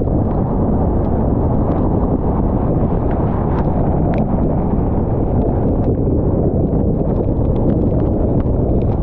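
Steady tyre and road noise heard from inside a car driving on a wet highway, with scattered light ticks and taps on the body.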